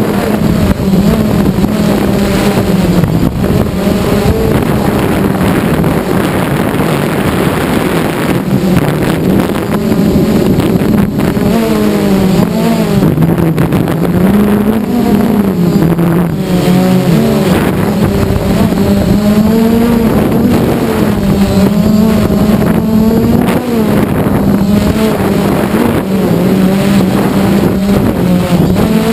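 Multirotor drone's electric motors and propellers running in flight, heard from the drone's own on-board camera: a loud, steady buzz whose pitch wavers up and down as the throttle changes.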